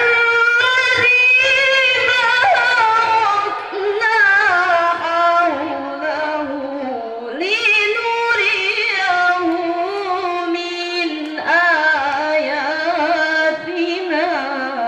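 A young woman chanting a Qur'an recitation in the melodic tilawah style, solo and unaccompanied into a microphone, in long ornamented phrases with brief pauses for breath.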